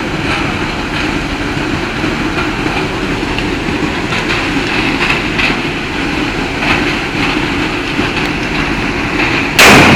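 A steady noisy rumble, then a single sharp, very loud bang near the end: the acetylene-and-petrol bomb going off.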